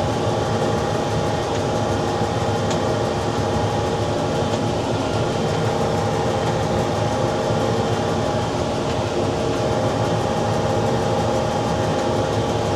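Case IH Farmall 110C tractor running steadily at working speed while pulling a New Holland BR7060 round baler, heard from inside the tractor's cab as an even drone with several steady tones.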